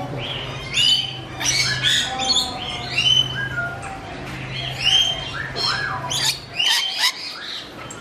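Parrots squawking and chirping in a quick series of short calls that glide up and down in pitch. A low steady hum runs underneath and stops about six and a half seconds in.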